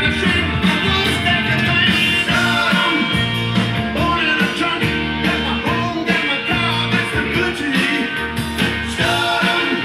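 Rock song with singing and guitar, played from a vinyl LP on a Technics SL-3200 direct-drive turntable.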